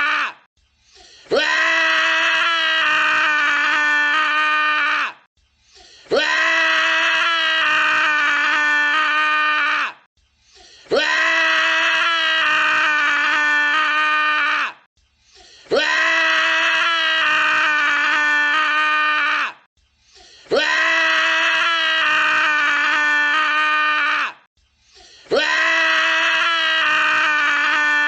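A man screaming: one long, steady scream of about three and a half seconds, repeated identically about every five seconds, with short silent gaps between.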